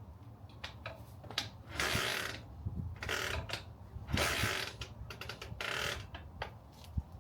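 A 1954 BMW R25/3 single-cylinder motorcycle being kick-started: three strokes of the kick-start lever about two seconds apart, each a short mechanical ratcheting whirr as the engine is turned over, with clicks between them.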